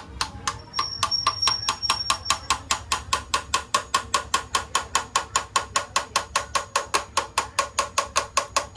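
Rapid, evenly spaced metallic clicks, about five or six a second, from a hand tool worked on the engine.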